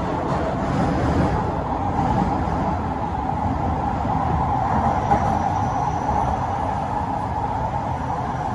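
Steady running noise inside a Singapore MRT train carriage as the train travels between stations, an even drone with no breaks.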